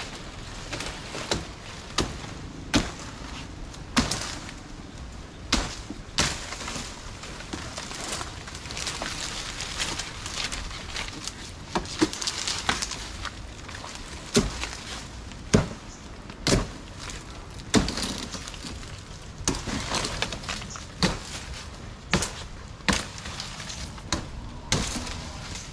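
Bolo knife (itak) hacking repeatedly into an anahaw palm to cut out its edible heart, sharp chops coming irregularly about once a second, with a rustling, crackling noise between the strikes.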